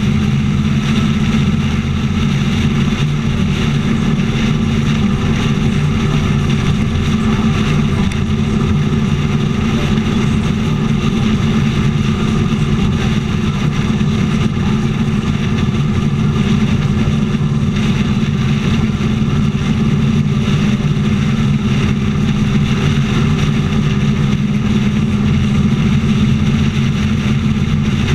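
Motorcycle engine running steadily at highway cruising speed, heard close up from the moving bike, with constant wind rush and tyre noise over it.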